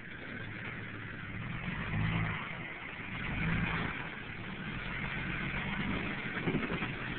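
Jeep Cherokee XJ engine running under load as the Jeep crawls over a rock ledge, rising in two revs about two seconds and three and a half seconds in.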